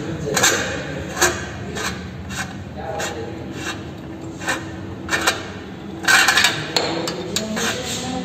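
Metal hand tools clinking and scraping against a motorcycle silencer's mounting bolt as a spanner loosens it. The clicks come irregularly, with a quick cluster about six seconds in.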